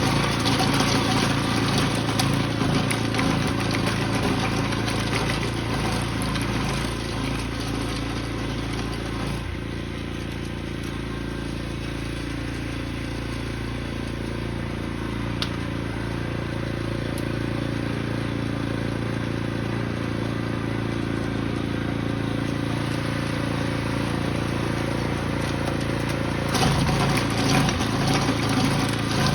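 Small engine running steadily, easing off slightly about a third of the way in and building back up, with one sharp click near the middle.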